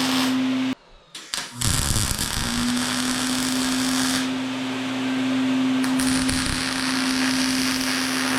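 An electric power tool motor running steadily with a constant hum and hiss. It drops out suddenly about a second in, there are some low knocks, and then it runs up again and holds steady.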